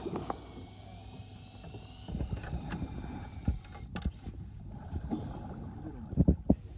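Small fishing boat at sea: steady low noise of water and hull, with irregular knocks and a cluster of louder thumps about six seconds in.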